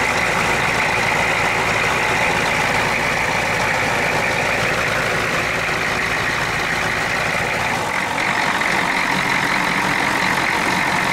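Ford 6.9-litre IDI V8 diesel in a 1991 F-250 idling steadily, running smoothly without stalling, purring, with a slight change in its low tone about eight seconds in.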